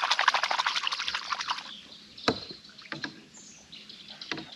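Rapid splashing of water, several splashes a second, that fades out about a second and a half in, as a giant snakehead is held in the water beside the kayak to revive it after the fight. After it come a few sharp knocks and faint bird chirps.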